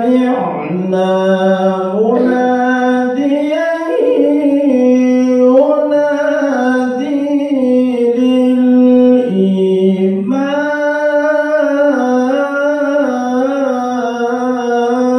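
A man reciting the Qur'an in the melodic tilawah style, holding long ornamented notes that step and glide between pitches, with short breaths between phrases.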